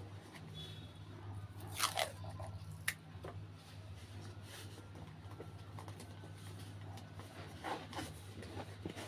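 Cardboard box being handled and pressed by hand, giving a few crinkling crunches: the loudest about two seconds in, one near three seconds and more near eight seconds. A steady low hum runs underneath.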